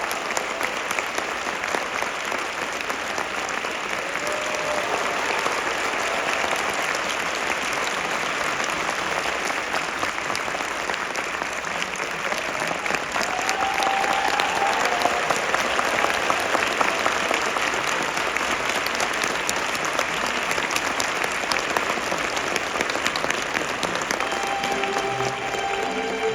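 Large theatre audience applauding steadily with dense clapping. Near the end, orchestral music starts to play under the applause.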